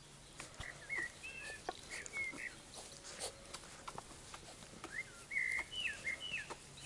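Labrador puppies play-fighting: short high-pitched squeaks and yips that bend in pitch, in two little runs, one about a second in and one near the end, with scattered soft scuffling knocks.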